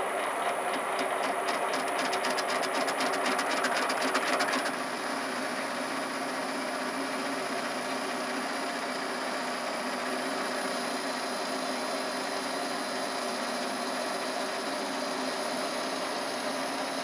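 Metal lathe running with a steady mechanical hum. For the first four and a half seconds a fast, even ticking rides on top of it, then stops abruptly.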